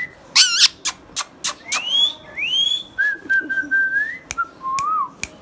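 Indian ringneck parakeet whistling and calling: a short screech, several sharp clicks, then a run of gliding whistles, some rising and arching, one held level before curving up.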